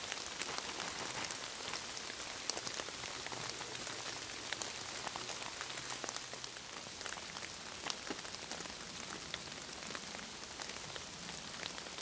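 Steady rain falling through the forest, many separate drops heard as sharp ticks over an even hiss.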